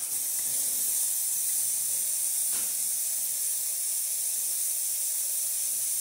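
Steam wand of a Gaggia Classic Evo Pro espresso machine blowing steam with a steady, loud hiss, the boiler fully up to steaming temperature.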